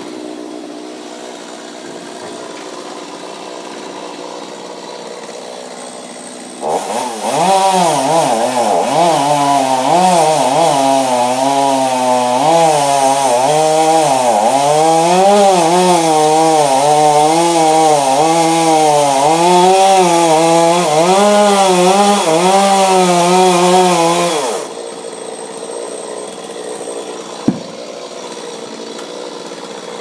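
Two-stroke chainsaw idling, then throttled up about seven seconds in and cutting into a dead tree trunk for about eighteen seconds, its pitch dipping and recovering as the chain bites. It then drops back to idle, and a single sharp click follows a few seconds later.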